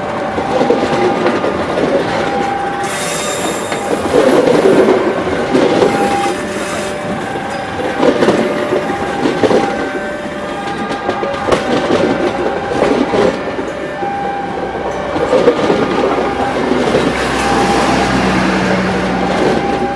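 A passenger train's stainless-steel coaches passing at close range, loud, the wheels clattering over the rail joints in repeated surges. A short steady tone recurs every couple of seconds.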